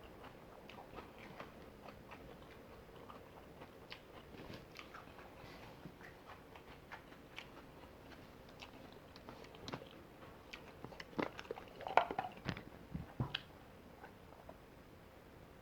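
A person eating fried chicken close to the microphone: soft chewing and small mouth clicks, with a run of louder bites and crunches about eleven to thirteen seconds in.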